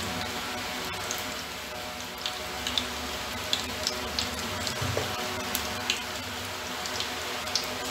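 Hot mustard oil sizzling in an aluminium pressure cooker with cumin seeds, a dried red chilli and bay leaves frying in it: a steady sizzle broken by scattered sharp crackles and pops.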